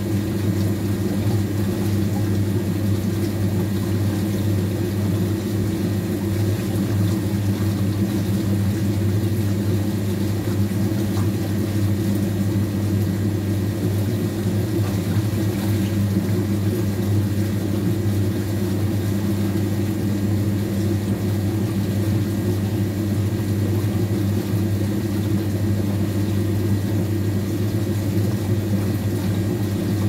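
Washing machine running with a steady low motor hum that does not change.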